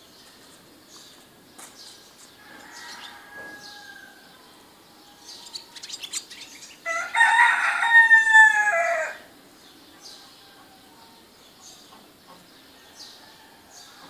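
A rooster crows once, loudly, about seven seconds in, a call of about two and a half seconds. Small birds chirp throughout, and a fainter call comes a few seconds earlier.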